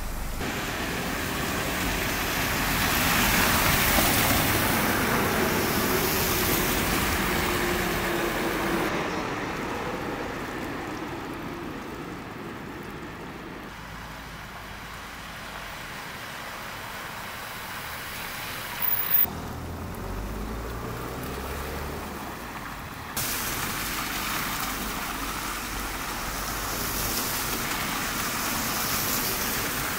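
Cars driving slowly through floodwater, tyres splashing and engines running, with stretches of water running along the street between passes. A short double knock about two-thirds of the way through.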